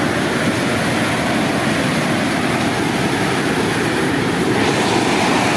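Water pouring over a dam's waterfall: a loud, steady rushing.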